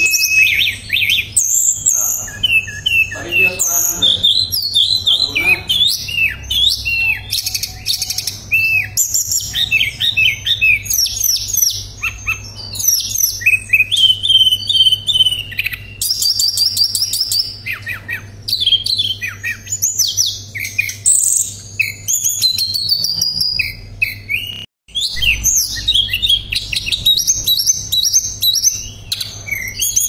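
Tledekan (Cyornis blue flycatcher) singing continuously: a varied song of whistled notes, quick rising and falling sweeps and fast rolling trills, broken by a very short dropout near the end. A faint steady low hum runs underneath.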